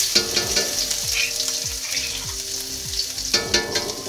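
Pounded garlic and Thai chilies sizzling in hot oil in a wok, with frequent sharp crackles of spattering oil.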